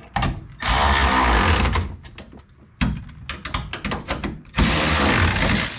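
A power wrench running down J-bolts on a leaf-spring perch bracket, in two bursts of about a second each. A few clicks and knocks come between the bursts.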